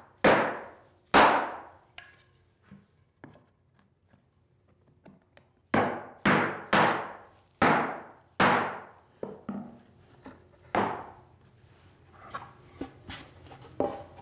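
Mallet blows on a plywood support, driving it down into glued dados: two blows about a second apart at the start, a few seconds' pause, then four blows about a second apart and one more a couple of seconds later.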